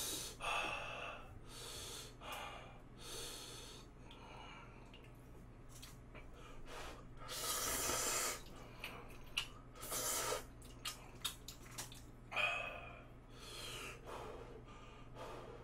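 A man eating very spicy Buldak fire noodles: heavy breaths in and out between mouthfuls, a longer slurp of noodles about seven seconds in, then small wet chewing clicks.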